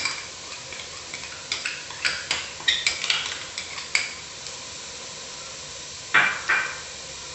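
Sliced shallots sizzling softly in a pan over a low flame as turmeric powder is spooned in, with a scatter of light clicks and taps of the spoon in the first few seconds and two short, louder sounds a little after six seconds.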